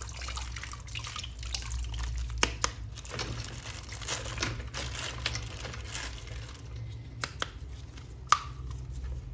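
Wet handling sounds of a plastic action figure being washed: drips, small splashes and light crinkling, with scattered sharp plastic clicks. The loudest is a single sharp click near the end.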